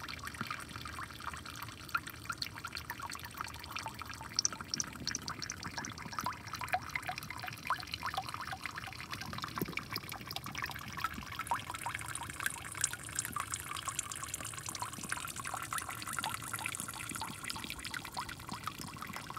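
Water pouring and trickling down into a drain below a metal grate: a steady splashing run of water with many small drips.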